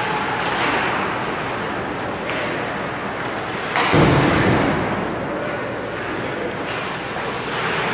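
Ice hockey game in a rink: steady noise of play on the ice, with one sudden thud just before four seconds in that fades out over about a second.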